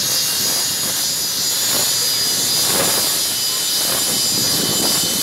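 Jet engines of parked BAE Hawk fighters running at idle: a loud, steady, high whine over a rushing roar, with several steady high tones held throughout.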